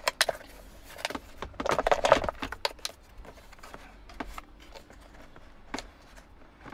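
A plastic screen-mount cover and its wire harness being handled and slid around: scattered light clicks and knocks of plastic, with a short spell of rustling clatter about two seconds in.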